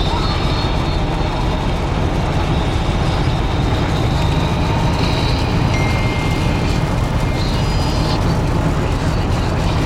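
Steady vehicle noise while driving: road and engine rumble heavy in the low end, with no break.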